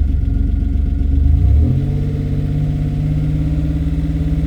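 Freshly rebuilt Buick Grand National's turbocharged 3.8 L V6 running on the road. About one and a half seconds in, the revs climb quickly and then hold steady.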